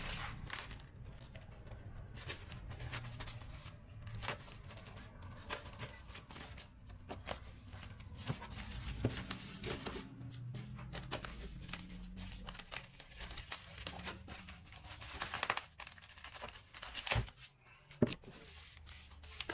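Packing tape being peeled and torn off, and foam and plastic wrapping crinkling and rustling, as a package is unwrapped by hand. The crackling is irregular, with a louder burst of tearing about 15 seconds in and a couple of sharp clicks near the end.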